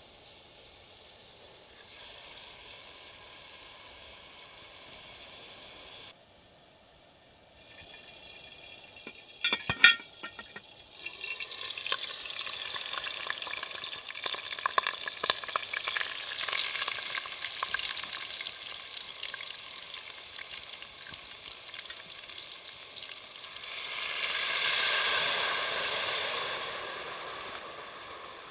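Food sizzling and crackling in a hot pot, with a few sharp knocks about ten seconds in; the sizzle swells louder around twenty-five seconds in, then eases.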